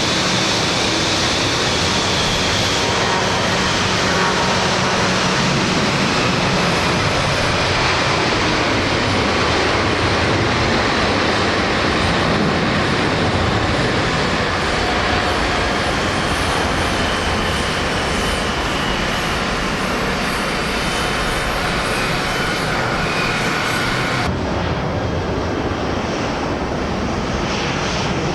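Jet airliner engines at takeoff power: a loud, steady roar with a faint whine that slowly falls in pitch as the aircraft passes. The sound changes abruptly about 24 seconds in, losing its high end.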